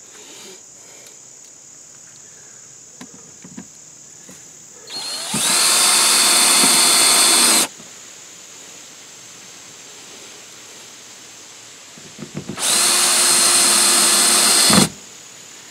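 A DeWalt 18-volt cordless drill/driver runs twice, each time for about two to three seconds with a short spin-up at the start, driving screws that fasten a plastic receptacle to wooden siding.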